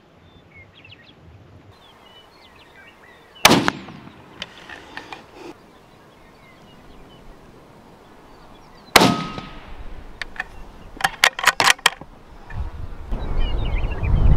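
Two shots from a Ruger 77/17 bolt-action varmint rifle, about five and a half seconds apart, each a sharp crack with a short echo, followed by a quick run of clicks. Low rumbling noise builds near the end.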